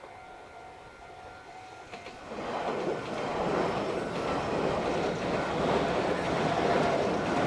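Meitetsu electric multiple-unit train running past on the main line, its wheels rumbling and clacking loudly over the rails from about two seconds in. Before it arrives there is a fainter tone that sounds and breaks off at regular intervals.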